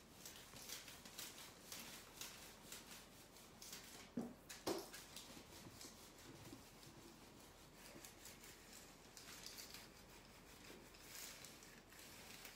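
Faint rustling and scraping of a dry clothes iron sliding over decoupage tissue paper on a wooden stool seat, reactivating the dried top coat beneath, with one soft knock about four and a half seconds in.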